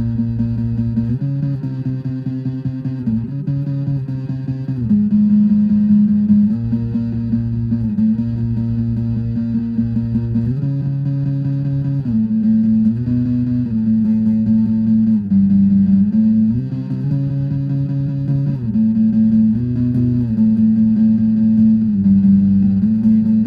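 Instrumental music led by guitar over a bass line, the chords changing every second or two, with no vocals.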